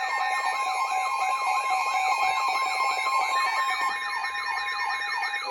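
Emergency weather alert alarm: steady alert tones under a rapid siren-like sweep that falls in pitch about four times a second.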